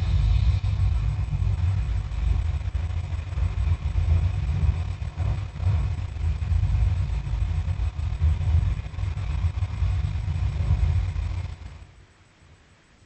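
Dragon sound effect: a loud, low rumble that starts suddenly and runs for about twelve seconds, then drops away.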